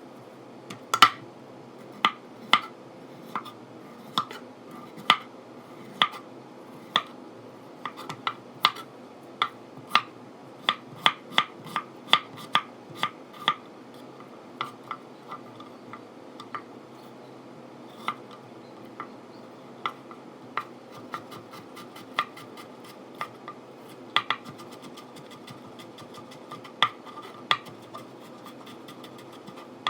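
Sharp kitchen utensil knocks with a slight metallic ring, one every second or so, coming more often in the first half and thinning out after it.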